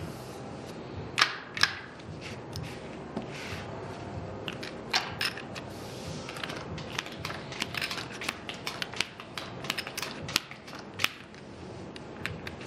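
Casino chips and playing cards clicking and tapping on a felt blackjack table as a hand is collected and a new one dealt: an irregular run of sharp clicks, the loudest pair about a second in.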